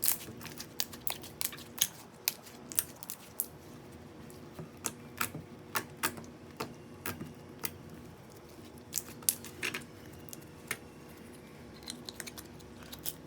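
Stretchy, bubbly slime being squeezed and played with by hand, giving irregular small pops and clicks as air bubbles burst, over a faint steady hum.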